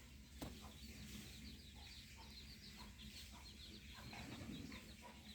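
Faint, rapid bird chirping over a low steady hum, with a single click about half a second in.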